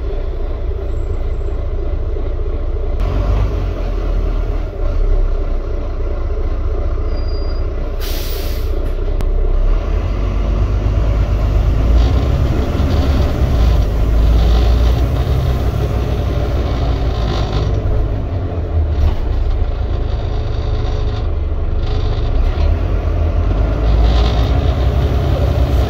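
Ride on the upper deck of a Volvo B9TL Wright Gemini double-decker bus under way: steady low rumble of its six-cylinder diesel engine and road noise, with one short hiss of compressed air about eight seconds in.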